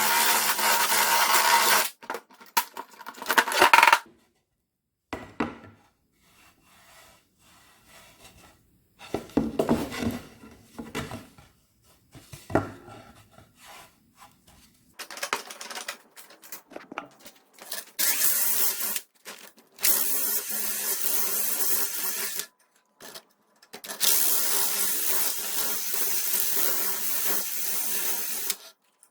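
Electric drill running in bursts of a couple of seconds each, with a steady motor whine, and quieter knocks and rubbing of handled parts in the pauses between runs.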